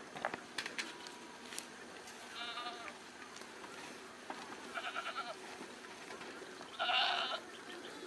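Goats bleating as the herd walks past: three short, wavering bleats, the loudest near the end. A few sharp clicks come in the first second and a half.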